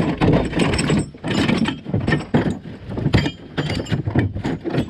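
Ratchet straps, chains and metal hooks clanking and rattling in a pickup truck bed as they are picked up, dropped and shifted around, in irregular knocks.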